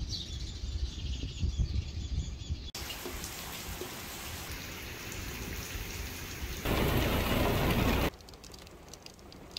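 Rain falling, heard as a string of short segments that change abruptly. A low rumble comes first, then a steady hiss of rain, loudest as a heavy downpour about seven to eight seconds in, dropping suddenly to quieter rain near the end.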